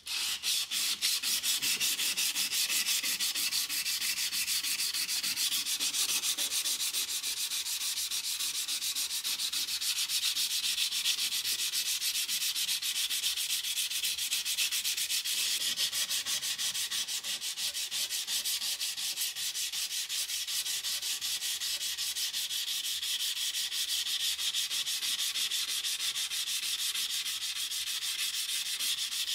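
Sandpaper rubbed by hand along the steel blade of antique Solingen tailor's shears, in fast, even back-and-forth strokes that make a continuous high scratching hiss. It is sanding the rust and dark patina off the blade.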